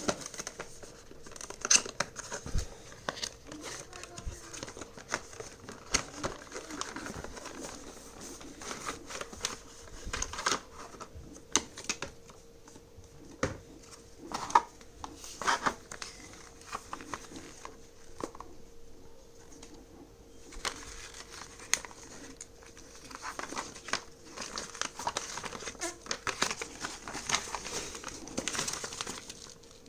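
Packaging being handled while unboxing a small gadget: plastic and cardboard crinkling and rustling, with irregular sharp clicks and taps.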